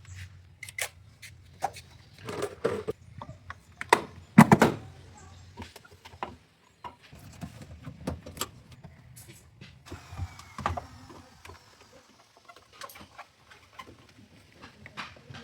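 Irregular knocks, clicks and clatter of hands working on a front-load washing machine, loudest about two and a half and four and a half seconds in, over a faint low hum.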